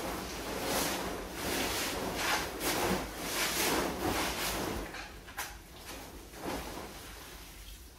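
Plastic tarp crinkling and swishing again and again as concrete mix and water are worked back and forth across it, the wet mix sliding over the plastic. The swishes come several a second at first and thin out and weaken over the last few seconds.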